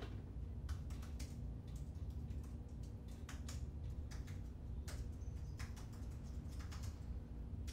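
Computer keyboard keys clicking in scattered, irregular taps over a low steady hum.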